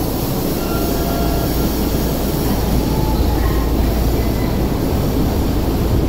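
Tokyo Metro subway train running alongside an underground station platform: a steady low rumble.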